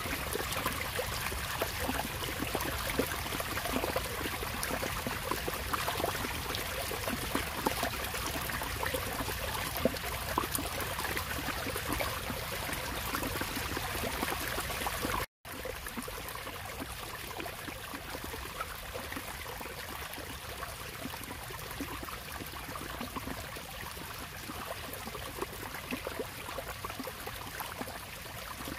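Water from a small cascade spilling over a stone wall into a pond: a steady splashing and rushing of running water. It drops out for an instant about halfway through, then carries on a little quieter.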